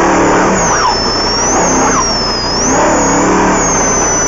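Off-road race vehicle's engine heard from inside the cockpit, its pitch rising and falling several times as the throttle is worked through a run of tight zigzag turns. A thin high whine wavers above it.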